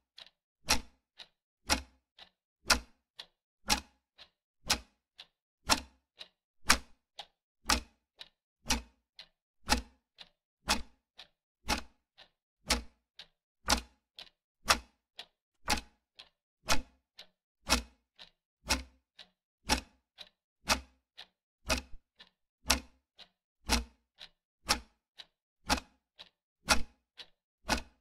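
Ticking-clock sound effect counting down a quiz timer: a steady tick-tock, one louder tick about every second with a softer tick between.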